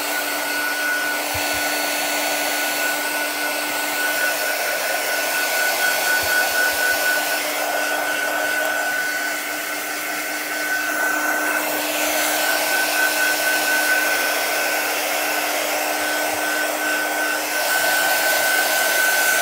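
Small handheld blow dryer running steadily, a rush of air with a thin high whine held over it, drying a wet paint colour wash on a wood board.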